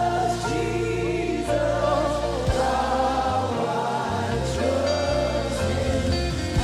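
Congregation and choir singing a gospel hymn with live band accompaniment: sustained sung notes over bass and keys.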